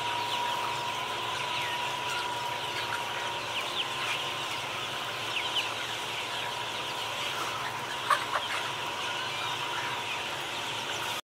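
A large flock of chickens calling at once: a dense, steady chatter of overlapping short clucks and peeps, with a faint steady tone underneath. Two sharp clicks come about two-thirds of the way through.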